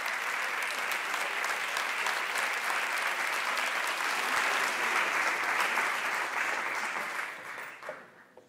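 A large audience applauding, a dense mass of clapping that fades out near the end.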